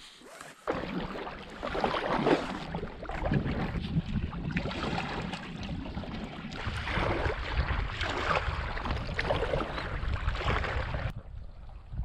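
Paddle strokes splashing in the river from a packraft, coming every second or so, with wind buffeting the microphone as a heavy rumble underneath.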